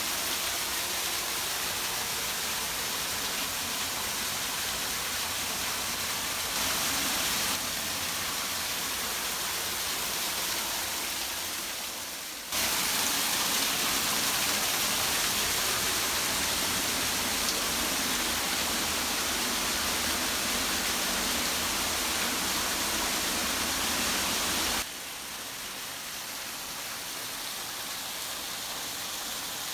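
A steady rush of falling water, with the level jumping abruptly a few times: up about twelve seconds in, and down again about twenty-five seconds in.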